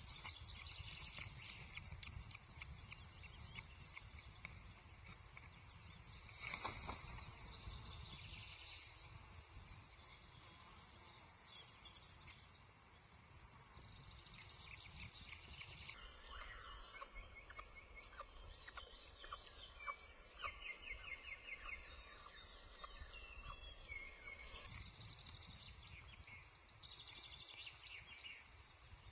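Faint, soft chupping calls of a newly hatched osprey chick, short notes repeated in quick runs over a low background hiss; the sounds come from the chick rather than the unhatched egg. In the middle stretch the calls are slowed down.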